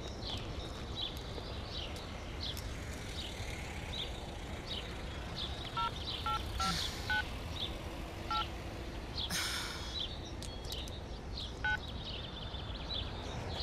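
Mobile phone keypad beeping as a number is dialled: five quick two-tone beeps about six to eight seconds in, then one more near the end. Small birds chirp throughout, and there is a brief hiss about nine and a half seconds in.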